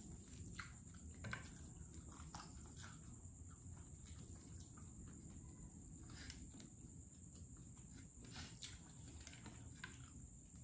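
Faint eating sounds: chewing, mouth clicks and fingers pulling apart smoked fish, heard as scattered soft clicks over a steady faint high whine.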